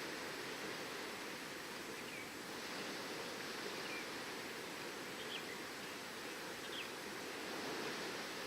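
Steady wash of ocean waves on the shore, with four faint short bird chirps scattered through.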